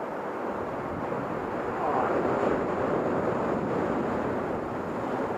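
Ocean surf breaking and washing up the beach, swelling about two seconds in and then easing off.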